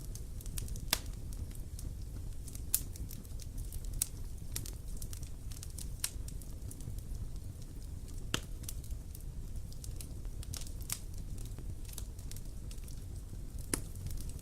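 Campfire burning, with sharp, irregular crackles and pops over a steady low rumble of the flames.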